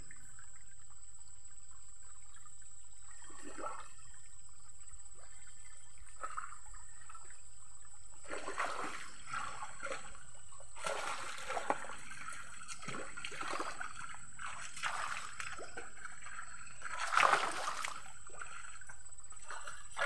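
Shallow stream water splashing and trickling around someone standing and stepping in it, quiet at first, then thick irregular splashes from about eight seconds in, the loudest near the end.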